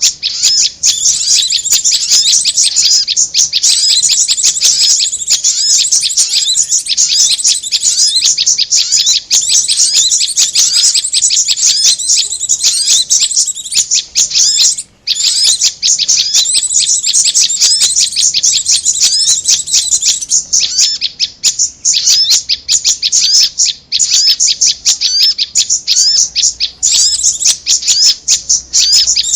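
Bird-trapping lure recording of korlap and prenjak (prinia) calls: a loud, dense stream of rapid high chirps, breaking off briefly about halfway through.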